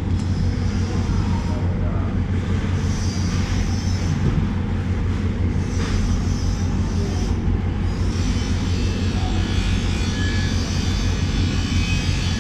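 A steady low mechanical drone, with an even wash of noise over it that does not change.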